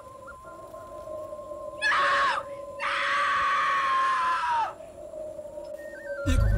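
Eerie dramatic sound effects: two screeching shrieks over a steady droning tone, the second longer and dropping in pitch as it ends. A deep rumbling roar begins near the end.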